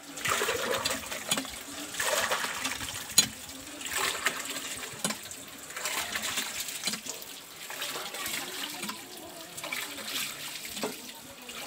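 Water from a well gushing and splashing, coming in uneven surges about once a second.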